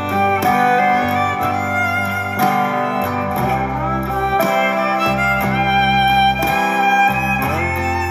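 Instrumental background music with a steady bass line and a melody of held notes.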